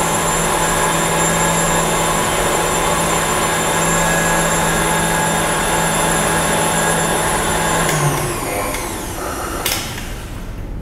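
Tilt-head stand mixer running at high speed, its wire whisk beating egg whites to stiff peaks: a steady motor hum and whine. About 8 s in it is switched off and the whine falls away as the motor spins down, followed by a click near the end.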